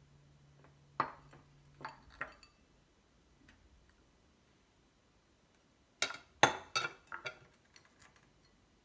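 Glass salad bowls clinking as they are nested one inside another and set down: three light clinks in the first couple of seconds, then a quick run of sharper, louder clinks about six seconds in.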